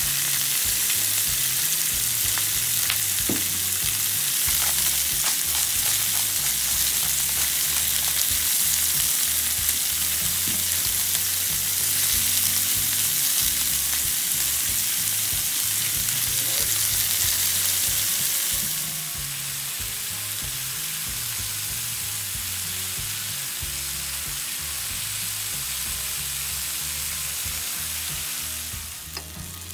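Sliced sausages, onions and bell peppers sizzling in a frying pan over a camp stove burner, a steady hiss that turns somewhat quieter about two-thirds of the way through.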